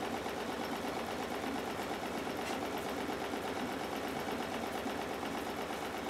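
Stuart Models triple expansion model steam engine running steadily on steam, with a fast, even beat.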